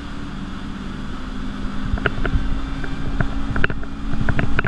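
Ski Nautique G23's ZR550 inboard engine accelerating the fully ballasted boat toward 23 mph, getting steadily louder, with wind over the open cockpit. From about two seconds in, a series of sharp slaps comes through over the engine.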